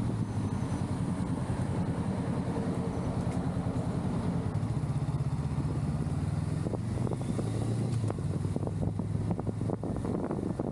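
Honda Rebel 500's parallel-twin engine running at low road speed, a steady pulsing engine note that rises a little about four seconds in and settles back lower near eight seconds.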